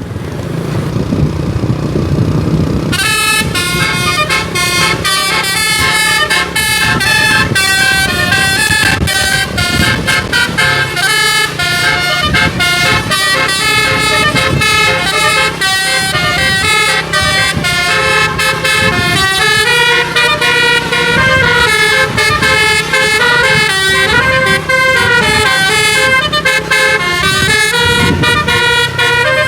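Bus telolet musical air horn playing a fast melody of many quickly changing notes, starting about three seconds in after a low rumble, and sounding continuously from then on.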